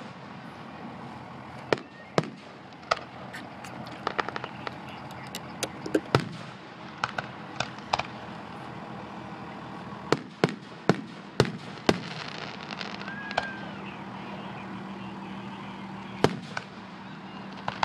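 Aerial fireworks display: shells bursting in sharp bangs at irregular intervals, some in quick clusters of several reports.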